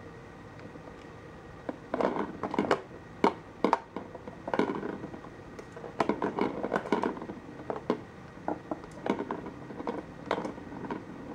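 Petstages Cheese Chase plastic ball-track cat toy rattling and clicking as a kitten bats at it and the balls knock around the track: irregular plastic clicks and knocks, some in quick clusters.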